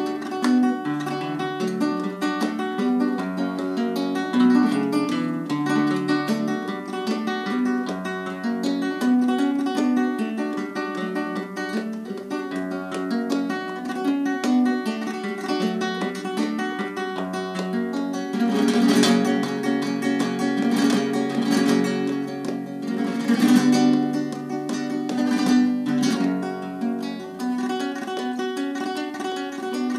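Nylon-string classical guitar played in flamenco style, a plucked melody over chords. A little past halfway comes a run of louder, sharper strokes.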